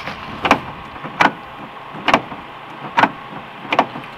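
Footsteps on gravel: five slow, evenly spaced steps, a little under one a second.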